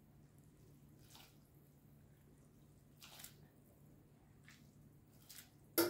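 Cooking-handling noises: a few short, soft scrapes and splashes and one sharp clink near the end, over a faint steady hum.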